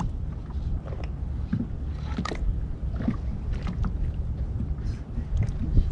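Steady low rumble of wind and water around a small moored fishing boat, with scattered light knocks and clicks.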